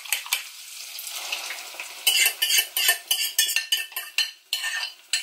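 Cod livers frying in hot pork lard in a pan, sizzling as a utensil stirs them, with a few quick taps at the start. About two seconds in the sizzling turns suddenly louder and crackly as the beaten egg goes into the hot fat.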